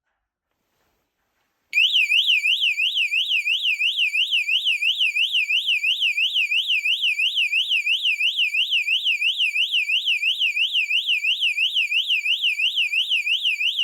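ONVIAN rechargeable bike alarm sounding a high-pitched warbling siren, its pitch sweeping up and down about three times a second. It starts suddenly about two seconds in and keeps going steadily.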